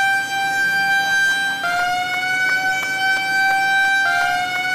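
Aircraft carrier elevator warning horn sounding one continuous high tone, dipping slightly in pitch twice and sliding back up, with faint regular ticking behind it. It is the alarm that sounds while the elevator between hangar bay and flight deck is being raised or lowered.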